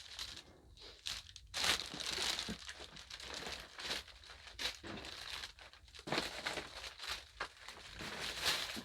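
Footsteps crunching and crinkling over debris on the floor of an abandoned house, in an irregular run of steps.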